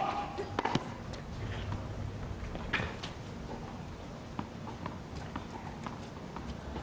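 Tennis ball impacts on a hard court: two sharp hits shortly after the start and a louder one a little under three seconds in, then scattered light ticks of balls bouncing between points.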